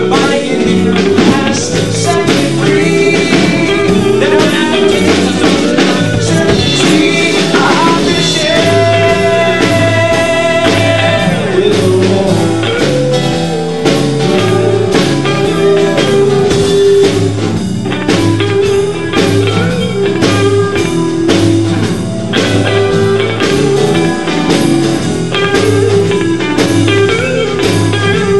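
Live band playing an instrumental blues-rock passage: electric guitar lead with bent notes over a steady bass line and drum kit.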